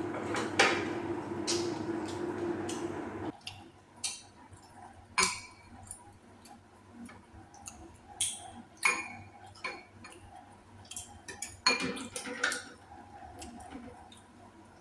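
Eating utensils clicking and clinking against bowls and dishes at a meal, in scattered single taps. For the first three seconds a steady hum runs under them, then cuts off suddenly.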